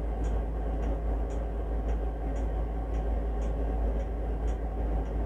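Steady low room hum, with faint ticks coming evenly about twice a second.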